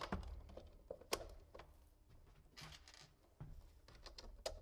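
Faint, scattered clicks and taps of hard plastic parts being handled: 3D-printed tank track links being fitted onto the sprockets, a few sharp clicks with quiet gaps between them.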